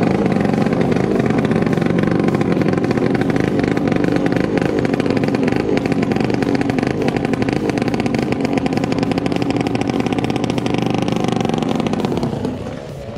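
Small racing boat's engine running steadily at high revs, a rapid dense firing note; it drops away about twelve seconds in.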